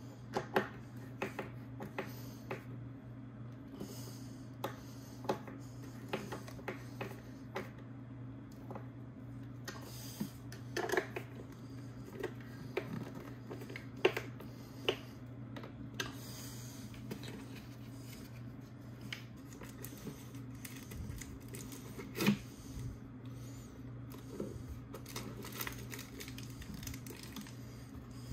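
Irregular small clicks and taps of metal cable lugs and terminal nuts being handled and hand-tightened onto battery terminal posts, over a steady low hum.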